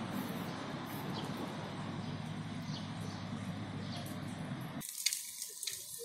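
Steady low rumbling outdoor background noise, which cuts off abruptly about five seconds in, giving way to a quieter, thinner hiss.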